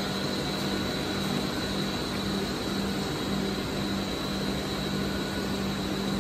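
Plastic pipe extrusion line running: a steady machine drone with a constant low hum and a faint high whine.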